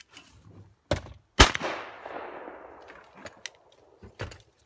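A single shotgun blast about a second and a half in, its echo dying away over more than a second, shooting at a thrown clay target. A short sharp knock comes just before it, and a few light clicks follow near the end.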